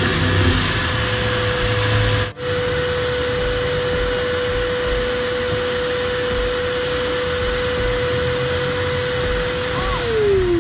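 Wet/dry shop vacuum running, a steady whine over rushing air as it vacuums a car's interior. Near the end its pitch falls as the motor is switched off and winds down.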